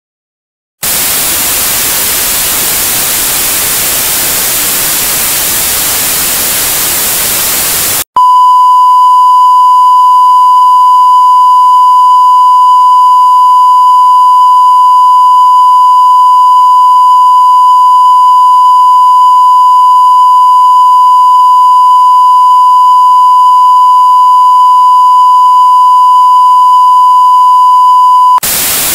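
Loud television static hiss for about seven seconds, then a steady pure test-card beep, the tone broadcast with colour bars during a programme interruption, held for about twenty seconds before the static returns near the end.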